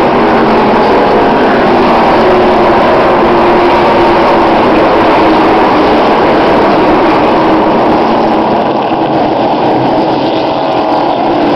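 The full field of NASCAR Sprint Cup stock cars at full throttle on the green-flag start, their V8 engines merging into one very loud, dense wall of engine noise. It eases slightly about eight seconds in as the pack heads away into the first turn.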